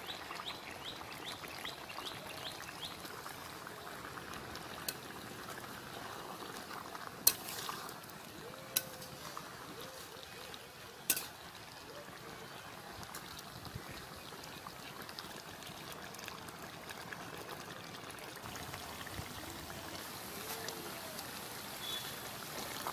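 Fish curry bubbling in a metal pot over a wood fire, a steady simmer, with three sharp metal knocks around the middle from a ladle against the pot. A bird chirps rapidly in the first few seconds.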